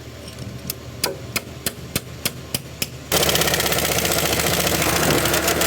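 Diesel engine of a Lonking 855N wheel loader running, with a regular light clicking about three times a second. About three seconds in, the sound jumps suddenly much louder and stays steady.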